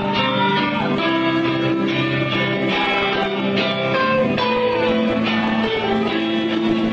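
Live heavy-metal band playing: electric guitar holding sustained notes with bent, gliding pitches over a steady rhythmic beat.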